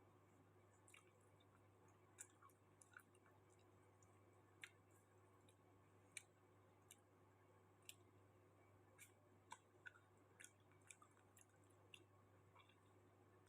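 Faint, irregular mouth clicks and wet smacks of someone chewing food, about twenty of them scattered over a low steady hum.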